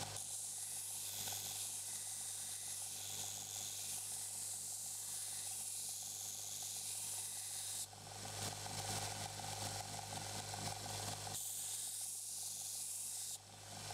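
Belt grinder running with a steady hum while a high-carbon steel knife blade, made from a reciprocating saw blade, is ground against the belt, giving a steady grinding hiss. The hiss lets up about eight seconds in, comes back a few seconds later, and stops near the end while the motor keeps running.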